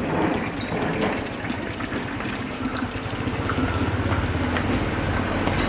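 Street noise with a steady rush, and the low hum of a motor vehicle engine growing louder toward the end.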